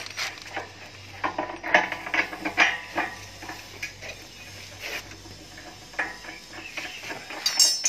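Irregular metal clinks and knocks as steel parts of a concrete hollow block machine's mould are handled and set in place, over a faint steady low hum.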